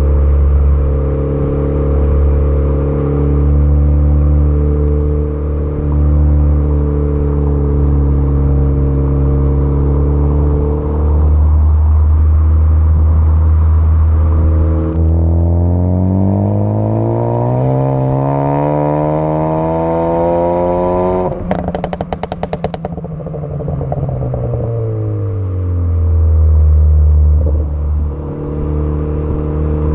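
Tuned Ford Focus ST engine idling, then revved in one long rise of about six seconds. When the revs drop, the exhaust lets out a rapid string of crackles and pops for about a second and a half, tuned-in overrun pops, before the engine settles back to idle.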